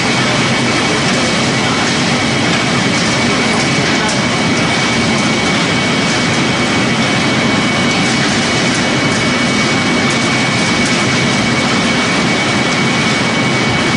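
Straw pellet-making machinery running loudly and steadily, with a constant high whine over a dense mechanical rumble and rattle.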